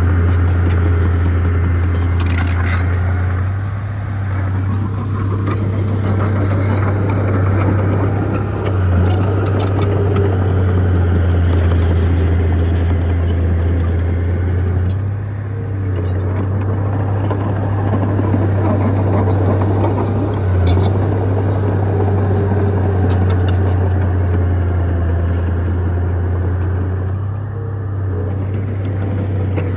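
Heavy diesel engine of earthmoving machinery running with a steady low drone that dips briefly a few times, with scattered sharp knocks over it.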